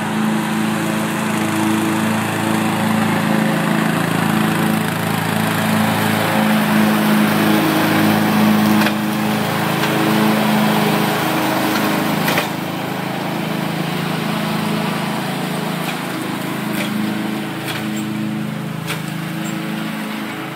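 A small engine running steadily, its level dropping slightly about twelve seconds in.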